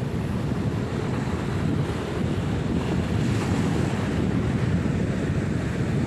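Wind buffeting the microphone: a steady, loud low rumble.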